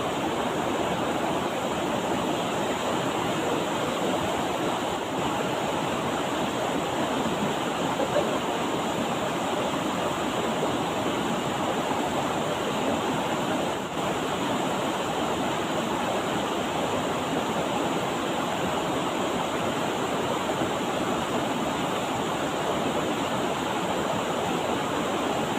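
River water rushing steadily over its bed, an even, unbroken noise.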